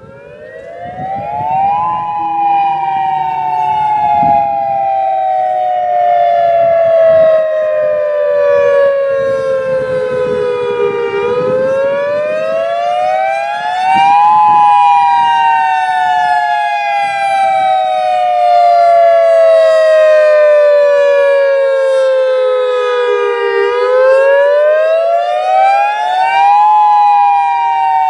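Federal Signal EOWS 612 electronic tornado siren sounding its wail signal. It winds up in the first two seconds, then its pitch glides slowly down and quickly back up, about every twelve seconds, in two close tones at once.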